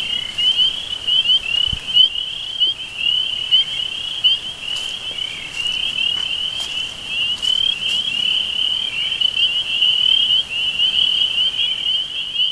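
A dense, unbroken chorus of many small animals giving rapid, high chirps, with a few faint clicks.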